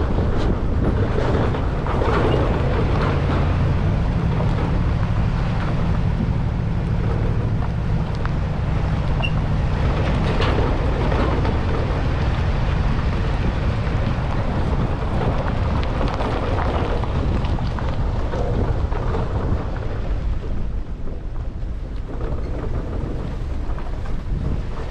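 Steady low rumble of a running vehicle engine, with wind buffeting the microphone.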